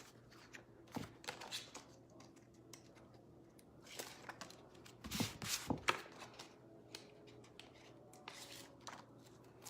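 Light rustling and scattered small clicks of craft materials being handled, such as a plastic silk-screen transfer sheet and its backing, with a few louder rustles past the middle.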